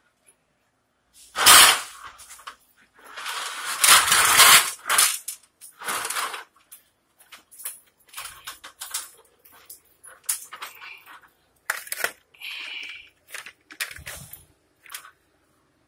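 Handling noise: a sharp knock about a second and a half in, a longer rustle around three to five seconds in, then scattered clicks and taps.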